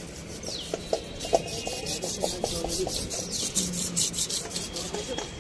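Quick repeated rubbing or scrubbing strokes, several a second, with a few light clicks among them.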